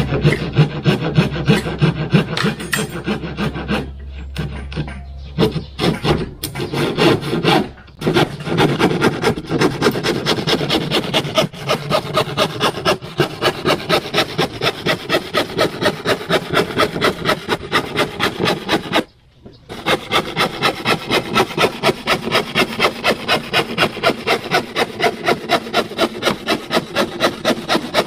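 Hand tool worked back and forth on plywood in steady rasping strokes, about three a second, stopping briefly twice.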